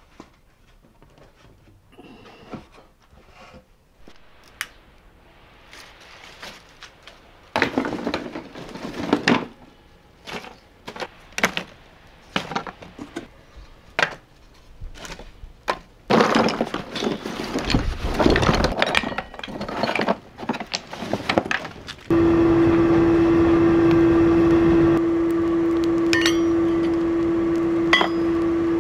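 Scattered knocks and clatter of hard objects being handled, in irregular clusters, then a machine switches on suddenly about three-quarters of the way in and runs with a steady hum, a few sharp clicks over it.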